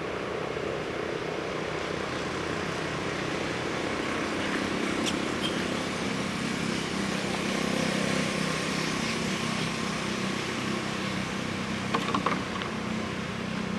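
A steady motor hum, with a brief cluster of sharp clicks about twelve seconds in.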